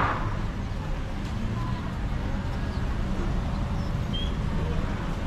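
Busy outdoor market ambience: a steady low rumble with faint background voices, and a sharp knock right at the start.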